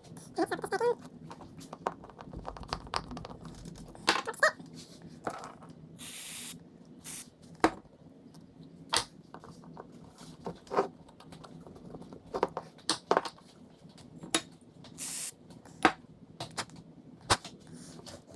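Aerosol carb cleaner hissing in short sprays into a jet ski carburetor's passages to blow out gunk, two main bursts, with small clicks and taps of the carburetor parts being handled between them.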